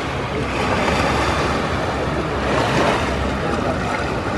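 Seaside ambience: small waves washing on the sand and wind buffeting the microphone, over a low steady rumble.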